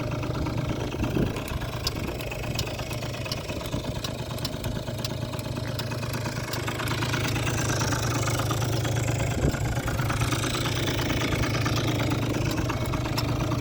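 Small 50cc two-stroke scooter engine of a Kymco Super Fever ZX idling steadily, a little louder in the second half.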